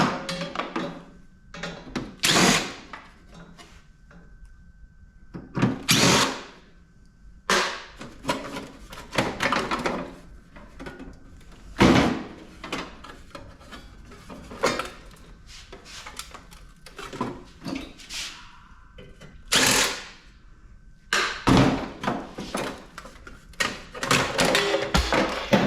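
Cordless drill-driver backing screws out of a PTAC air conditioner's sheet-metal casing in short runs of about a second, repeated many times, with clicks and knocks of metal parts in between.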